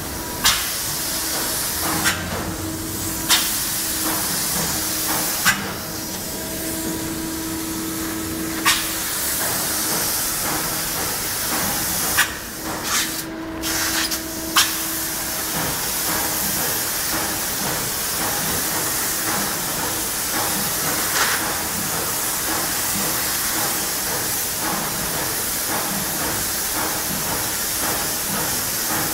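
High-pressure polyurea spray gun atomising coating in a steady, continuous hiss. A few sharp clicks every couple of seconds sound over it in the first half.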